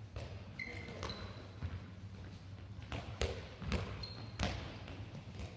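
Handballs being caught and bouncing on a sports hall floor: about six sharp smacks at irregular intervals. Three short high squeaks of shoes on the floor come between them.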